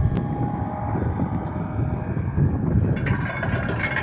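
Wind buffeting the microphone, with the faint steady hum of a small boat's motor underneath. About three seconds in, a crackling rustle starts.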